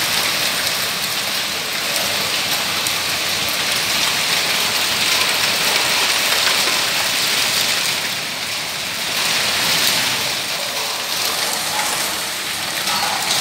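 Hailstorm: hailstones and heavy rain falling on a concrete rooftop and its outdoor furniture, a steady dense hiss with scattered sharper hits.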